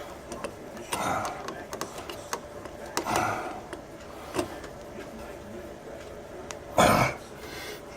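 Scattered light clicks and scrapes of hand work with a screwdriver at an electrical outlet box. A short, louder rustle comes about seven seconds in.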